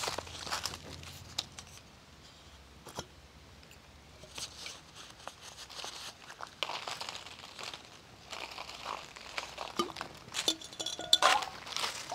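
Leaves rustling and crinkling in a scatter of light crackles, with a louder cluster of crinkling near the end.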